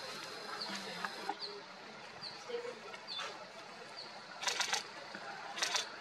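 Two short bursts of rapid camera shutter clicks, the first about four and a half seconds in and the second about a second later. Under them a faint short high note repeats about once a second.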